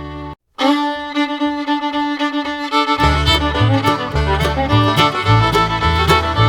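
Background music: upbeat fiddle-led bluegrass-style tune. It cuts out for a moment about half a second in, restarts on a held fiddle note, and the bass and beat come back in about three seconds in.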